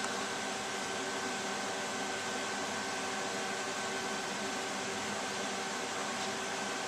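Computer cooling fans running steadily: an even whooshing hiss with a faint steady whine.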